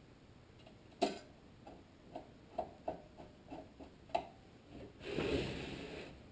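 Small metallic clicks and ticks of a screwdriver turning a screw into the sheet-metal heat box on a small engine, irregular, with sharper clicks about a second in and about four seconds in. A longer rustling scrape follows about five seconds in.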